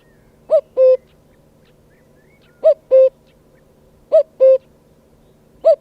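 Common cuckoo giving its two-note "cu-coo" call: a higher first note dropping to a lower, held second note, repeated about every one and a half seconds, three full calls with the first note of a fourth at the end. Faint chirps of other birds sound between the calls.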